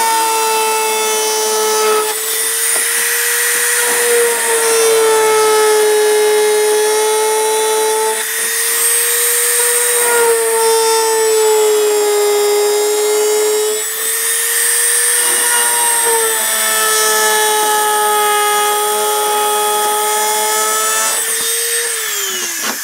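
Dremel rotary tool with a 1.25 mm router bit cutting through plastic: a steady high motor whine with grinding noise, its pitch wavering a little as the bit bites. Near the end it is switched off and the whine falls away as the motor spins down.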